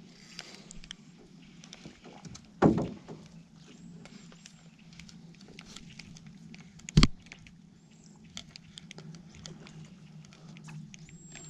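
Small clicks and taps of fishing gear being handled in a boat, with two loud knocks: a dull one about two and a half seconds in and a sharper, louder one about seven seconds in.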